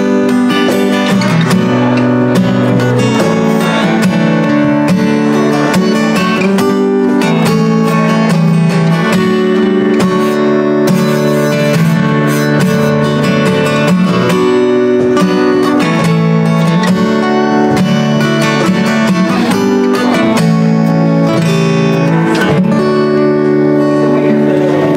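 Instrumental music with acoustic guitar: plucked and strummed chords.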